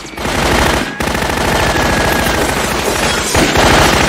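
Rapid, sustained machine-gun fire, broken by two brief pauses, one about a second in and one near the end.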